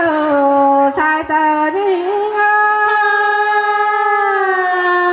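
A woman singing a slow, drawn-out melody. She moves between a few notes, then about halfway through holds one long note that sinks slightly in pitch before breaking into new notes near the end.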